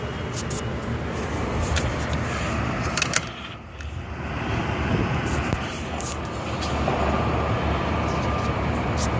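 Steady street traffic noise: a continuous low rumble of cars and buses on the road, with a couple of sharp knocks about three seconds in.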